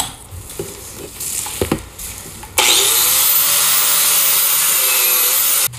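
Angle grinder with a wire wheel starting up about halfway in, spinning up with a rising whine and then running steadily as it scrubs rust and grime off a cast Dana 60 steering knuckle. Light clicks and knocks come before it as the grinder is picked up, and the running stops abruptly near the end.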